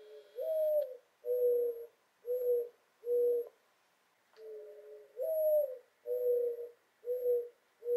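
Mourning dove cooing: two full calls, each a low opening note, a slurred rising-and-falling coo, then three shorter even coos.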